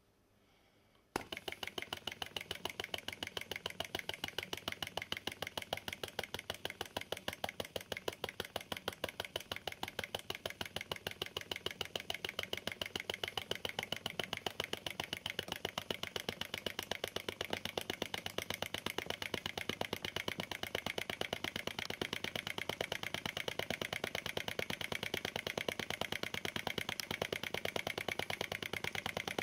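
Small flame-licker (vacuum) model engine set going by hand and catching about a second in, then running with a fast, even popping.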